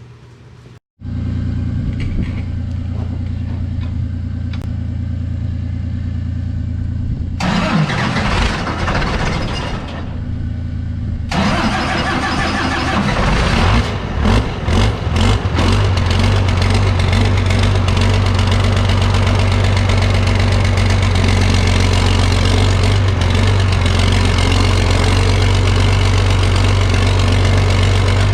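A large engine running steadily, its deep hum broken by abrupt changes in sound about seven and eleven seconds in, and louder and rougher after the second change.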